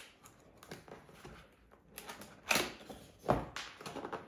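Cardboard scraping and rubbing as a pull-tab is drawn out of a cardboard box, in a string of short scrapes and taps that are loudest in the second half.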